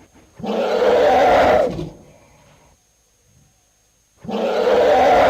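Elephant roaring twice, two rough roars each about a second and a half long, the second starting about four seconds in.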